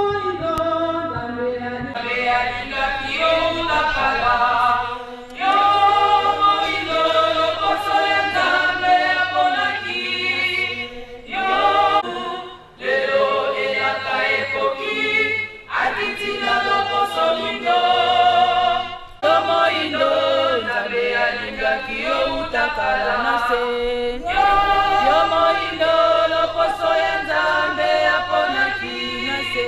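Congregation singing a hymn a cappella, many voices together with no instruments, in phrases separated by short breaks.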